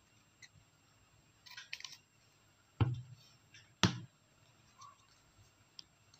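A few crisp scissor snips through paper card, then two sharp thumps about a second apart, the loudest sounds, followed by light paper handling.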